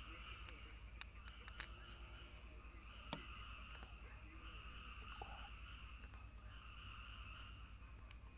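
Faint steady chorus of frogs and insects, with a steady high insect trill, swelling and fading slightly. A few soft clicks sound in the first few seconds.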